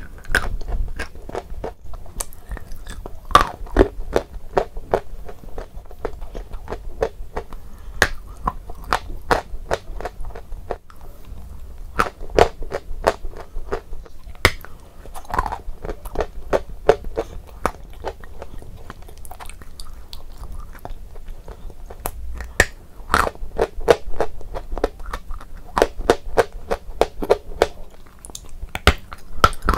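Close-up biting and chewing of eating chalk pieces dipped in wet clay paste: a dense run of crisp crunches and sharp cracks, coming in clusters, with chewing between them.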